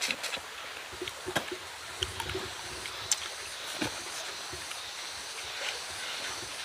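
People eating small steamed fish with their fingers: scattered mouth smacks and small sharp clicks as the fish is sucked off the bones, with rustling of the banana-leaf wrapping, over a steady outdoor hiss.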